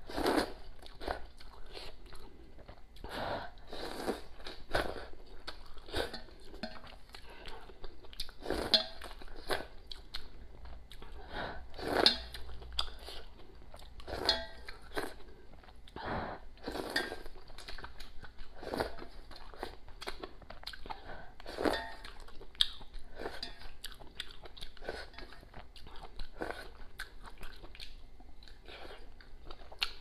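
A person slurping and chewing rice noodles in broth close to the microphone, in irregular short wet bursts.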